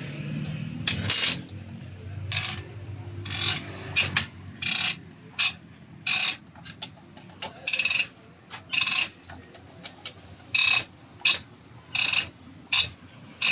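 Diesel fuel-injector nozzle being pop-tested on a hand tester: a string of short, sharp spray bursts, roughly one a second, each with a high chattering tone.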